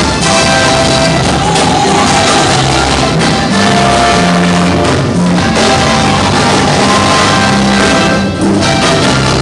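Live gospel band playing loudly, with drum kit, keyboard and electric guitar and voices singing over it.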